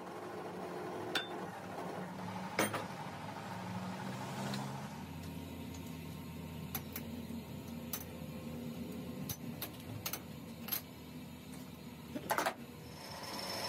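Scattered metal clicks and clanks from hands working a lathe's tool post and compound slide, with a low machine hum underneath; a short cluster of knocks near the end is the loudest.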